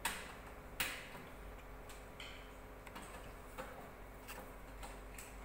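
Light clicks and taps of multimeter test probes touching and moving over a circuit board: two sharper clicks near the start, then fainter ones every half second or so. A brief high tone sounds about two seconds in.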